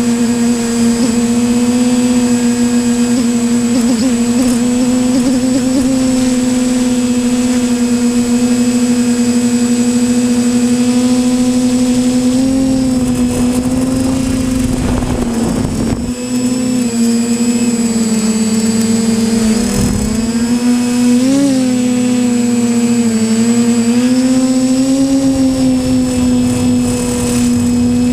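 Quadcopter drone's propellers buzzing steadily at one pitch, the note dipping and rising slightly now and then as the drone manoeuvres. Two brief rushes of wind noise come about halfway through.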